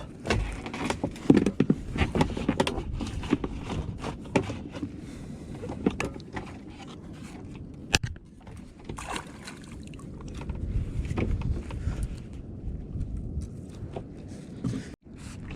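Irregular knocks, scrapes and thumps on a Stealth Profisha 475 fishing kayak as a freshly landed spotted mackerel is handled and subdued on board.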